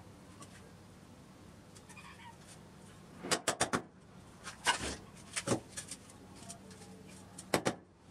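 Sharp plastic clicks and knocks from a PVC pipe fitting with a ball valve being handled and pushed onto a PVC pipe, in a few short clusters.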